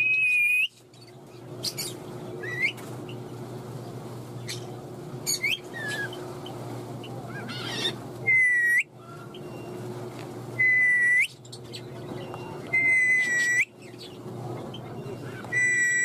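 Rose-ringed parakeet whistling: five loud, level whistles a few seconds apart, each ending in a quick upward flick, with short rising chirps between them.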